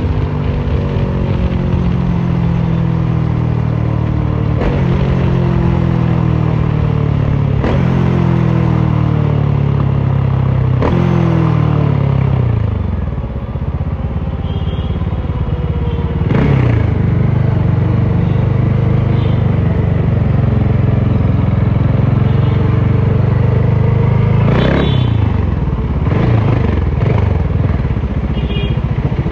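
Bajaj Dominar 400's single-cylinder engine, running with no muffler, on the move. Over the first twelve seconds the revs fall several times, each time jumping back up, as when slowing through the gears. The engine then picks up again and holds a steady note, with a short rise and fall in revs about twenty-five seconds in.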